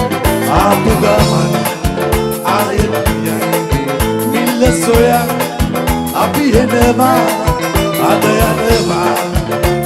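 Live band playing an upbeat song with a steady drum beat, a male singer singing over it.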